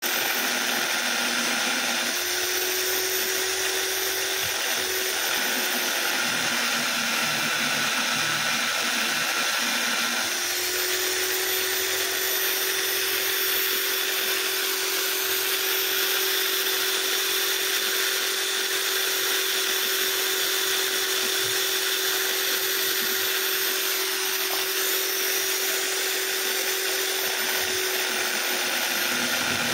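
Electric drill running steadily, spinning an abrasive wheel against the lobe of a hand-held motorcycle camshaft as the lobe is ground down by hand. A steady motor whine over a grinding hiss, its pitch shifting a little about two seconds and again about ten seconds in.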